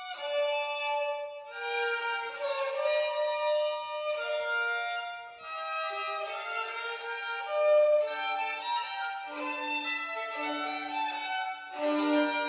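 Violin playing a melodic passage of sustained bowed notes that change pitch every half second to second and a half, moving down to lower notes in the last few seconds.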